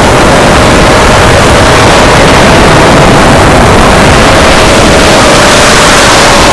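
FPV quadcopter's motors and propellers running steadily: a loud rush of noise with one steady whine whose pitch drifts slightly up and back down.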